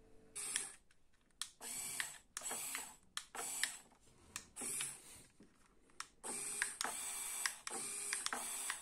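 Small CaDA power-function electric motors whirring in short runs, about ten times, each started and stopped abruptly as the infrared remote's controls are pressed: the motors working on first test.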